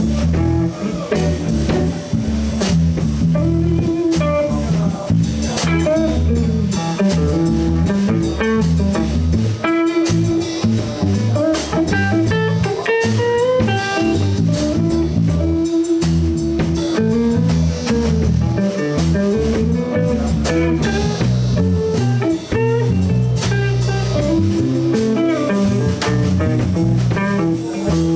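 Blues band playing an instrumental passage between sung verses: a guitar plays a lead line with bent, sliding notes over bass guitar and a drum kit.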